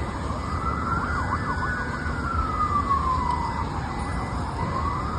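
Emergency vehicle siren wailing, its pitch rising and falling slowly, with a faster yelping sweep overlapping it from about one to two and a half seconds in, over a steady low rumble.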